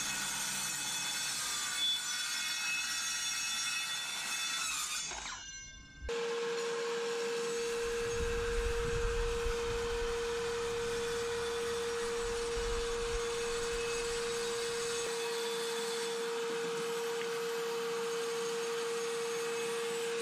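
Circular saw cutting timber decking boards, its whine wavering in pitch as the blade takes the wood. After a short break about five seconds in, a steady single-pitched motor whine with a hiss goes on, from the saw and its attached dust extractor running.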